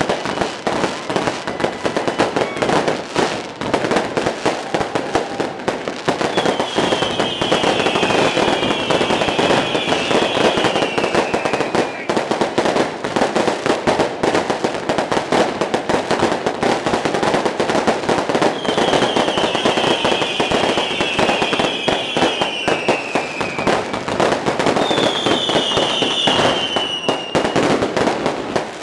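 New Year fireworks going off: continuous rapid crackling and popping, with three long whistles falling in pitch.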